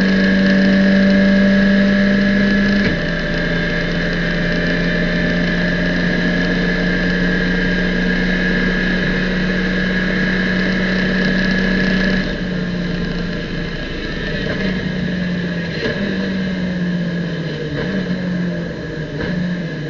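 Abarth racing car's engine heard from inside the cockpit at full throttle, with an upshift about three seconds in that drops the pitch. About twelve seconds in the driver lifts off to brake, and the engine note falls in several steps as he changes down through the gears near the end.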